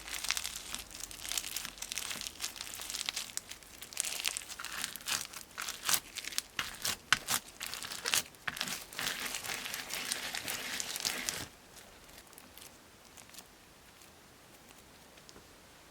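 Floral foam crunching as it is crushed and squeezed by hand: a dense run of crisp, sharp crackles that stops abruptly about eleven and a half seconds in, leaving only faint room tone.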